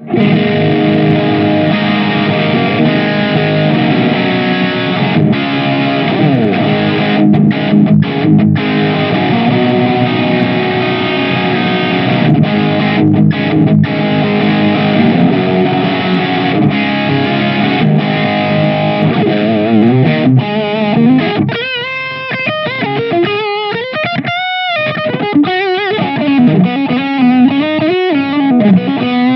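Electric guitar played through a Marshall Guv'nor vintage reissue distortion pedal, giving a crunchy overdriven tone. It plays sustained distorted chord riffs, then about two-thirds of the way in switches to single-note lead lines with bends and vibrato.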